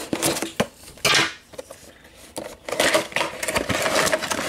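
Cardboard window-box packaging being opened by hand: the top flap is pulled open and the clear plastic tray slides and clatters, with scattered clicks, a short rustle about a second in, and busier rustling and clattering in the second half.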